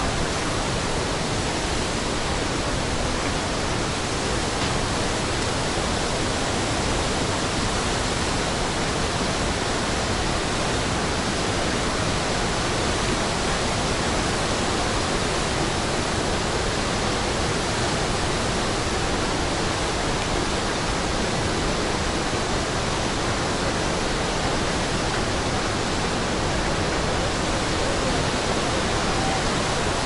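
Steady rush of Iguazu Falls, a huge volume of water pouring over the falls, heard as a dense, unbroken noise from deep lows to high hiss.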